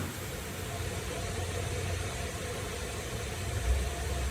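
Haas DM-2 CNC machining center spindle running at a low 500 RPM: a steady low hum with machine noise. A deeper low swell comes in near the end.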